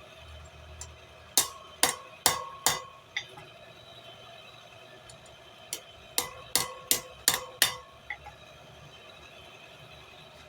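Hammer striking steel with a ringing metallic note: four blows, a pause of a few seconds, then five more, with a few lighter taps in between.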